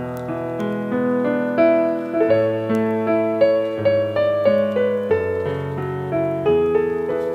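Background music led by piano: a melody of short notes moving over held bass notes.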